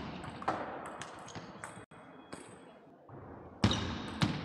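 Table tennis ball struck by rubber-faced paddles and bouncing on the table during a rally, sharp echoing knocks, with sports shoes squeaking on the wooden hall floor between hits.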